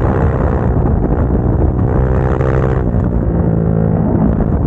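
Motorcycle engine running hard on the road, its pitch climbing with the revs and then dropping about three seconds in.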